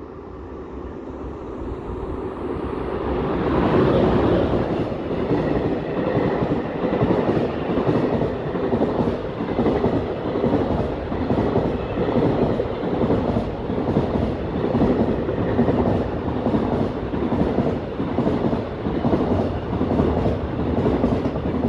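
Freight train passing close by. The noise builds over the first few seconds as it approaches, then settles into a steady, rhythmic clatter of wagon wheels over the rail joints.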